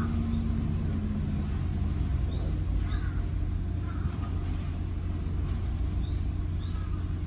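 Steady low rumble of construction-site machinery, with small birds chirping now and then over it.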